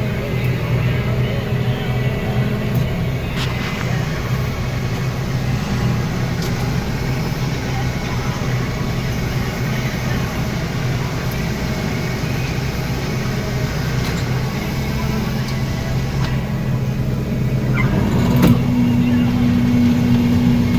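Combine harvester engine running steadily, with a higher steady hum joining near the end.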